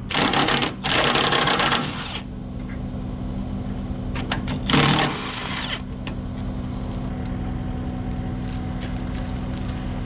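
Cordless impact wrench hammering in three short runs, two back to back at the start and another about five seconds in, undoing the bolts that hold a corn planter's marker arm on. An engine idles steadily underneath.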